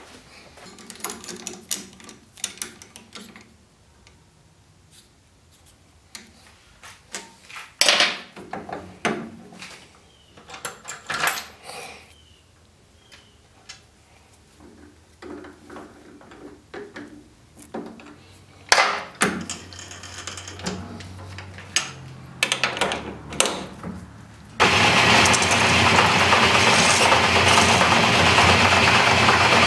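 Clicks and clanks of metal stock and tools being handled and set up. About 25 seconds in, a small metal lathe switches on suddenly and runs steadily and loudly, ready to turn a quarter-inch shaft.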